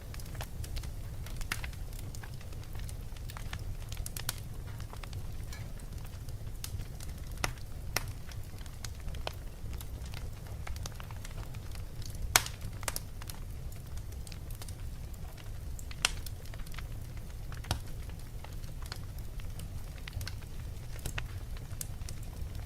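Fire in a fireplace crackling, with irregular sharp pops over a steady low rumble. Two louder pops stand out about twelve and sixteen seconds in.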